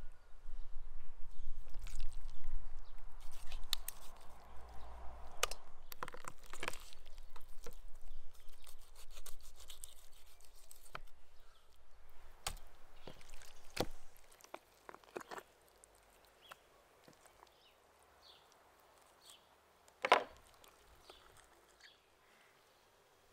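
Scattered clicks and knocks of raw rabbit meat being handled and cut with a knife on a wooden cutting board, with one louder knock about twenty seconds in. A low rumble runs underneath and stops about fourteen seconds in.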